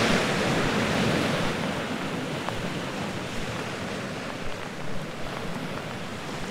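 Sea surf washing on the shore of the Bristol Channel, loudest at the start and easing off after about two seconds into a steady wash, with wind buffeting the microphone.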